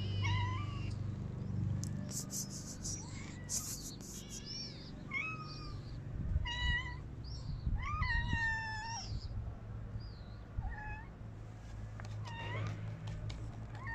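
Cats and kittens meowing for food: short, high-pitched meows every second or so, with a longer drawn-out meow about eight seconds in, over a steady low hum.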